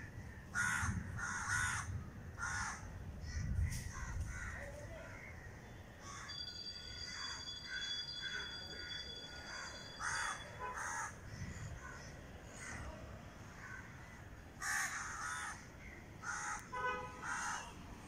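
Crows cawing, harsh calls in clusters of two or three, with the densest run near the end. A thin steady high whistle sounds for a few seconds in the middle.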